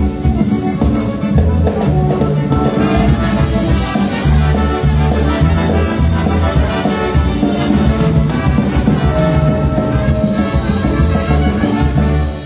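Brass polka band playing a tune live and loud over a steady bass beat, stopping abruptly near the end.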